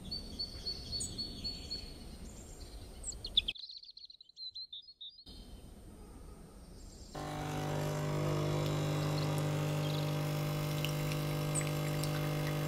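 Birds chirp over outdoor background noise for the first few seconds. About seven seconds in, a capsule espresso machine's pump starts and runs with a steady hum while it brews espresso into a glass.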